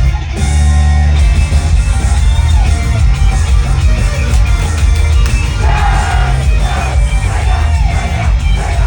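Loud rock-style music with a singing voice over a heavy bass beat.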